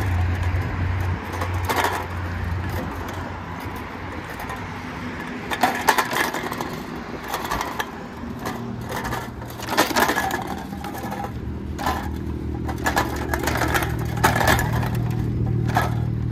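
Empty aluminum cans rattling and clinking in a plastic milk crate on a moving bicycle's handlebars, in irregular bursts as the bike rolls over rough pavement, over a low steady hum from the ride.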